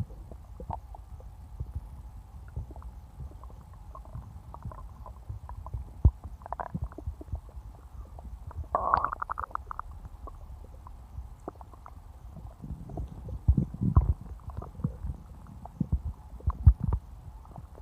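Stomach gurgling and rumbling: irregular low rumbles and small pops, with a longer bubbly gurgle about halfway through and a run of louder rumbles after that.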